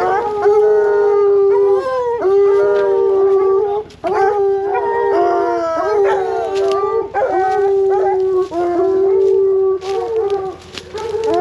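Several bear hounds bawling on a bear they are running, in long drawn-out howls, one after another with voices overlapping.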